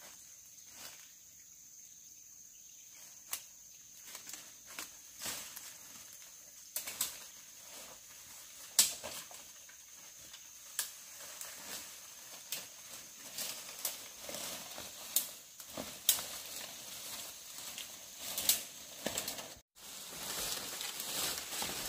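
Irregular sharp clicks and knocks, the loudest about nine seconds in, over a rustling background and a steady high insect drone. The sound drops out for a moment near the end.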